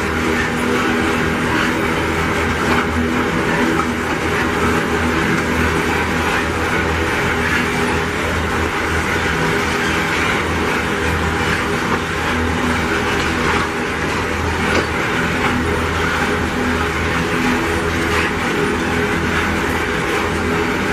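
Loaded iron-ore train passing: its GDU hopper wagons' steel wheels running steadily over the rails, a continuous even noise with a low steady hum underneath.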